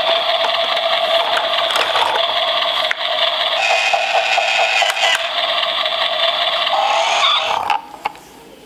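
A battery toy truck's built-in electronic sound effect playing through its small, tinny speaker: a steady, buzzy tone with a few clicks of handling. It cuts off suddenly near the end.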